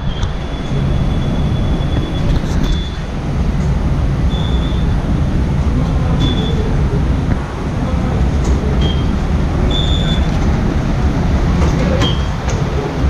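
Steady low rumble in a covered ferry pier walkway, with short high electronic beeps every second or two from the Star Ferry's turnstile card readers as passengers tap through.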